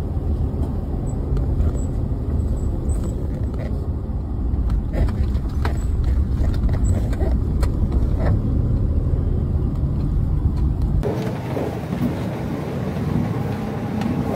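A four-wheel-drive vehicle driving along a rough dirt track: a steady deep engine and tyre rumble with scattered knocks and rattles from the bumps. About eleven seconds in, the sound switches abruptly to a lighter cabin noise with less of the low rumble.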